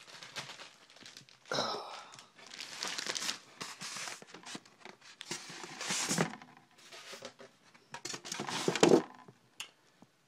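Product packaging being handled and packed back into its box: plastic wrap and bags crinkling, with cardboard and a moulded plastic insert rustling and bumping in irregular bursts. The loudest burst comes near the end.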